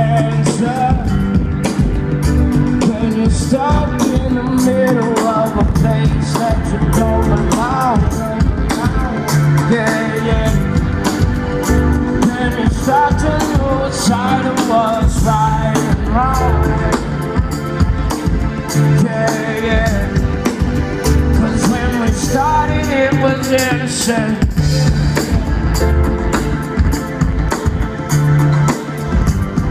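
Live band playing over a festival PA, heard from the crowd: a singer's voice over electric guitar, bass and drums.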